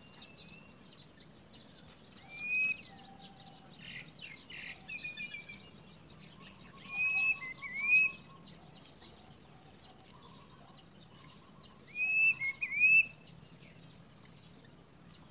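Bird calls: three bursts of short, curved whistled notes about five seconds apart, with fainter chattering in between.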